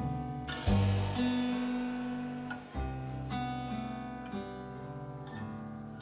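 Background music: acoustic guitar strumming chords, with fresh strums about a second in and again near the three-second mark.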